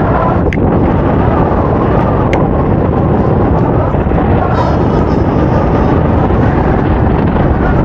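Loud, steady wind rumble buffeting the action camera's microphone as the paraglider pilot launches and gathers airspeed, with a couple of faint clicks.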